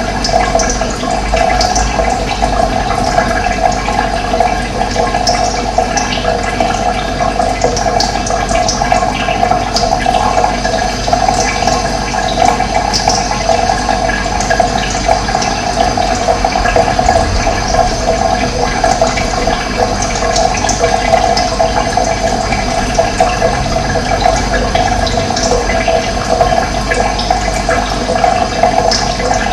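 Steady rush of running water, with occasional short, high bird chirps over it.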